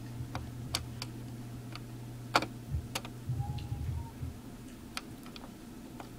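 Scattered small sharp clicks and taps of a processor and fingertips against an LGA1366 CPU socket as the chip is handled and seated, over a steady low hum, with a soft low rumble of handling a little after the halfway point.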